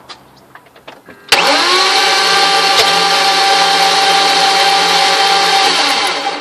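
2002 BMW 325's straight-six cranked by the starter without firing, a loud, steady whirring whine that comes in suddenly about a second in, rises briefly in pitch, holds for about five seconds and stops near the end. A crank-no-start with a strange noise that the owner says sounds different from normal.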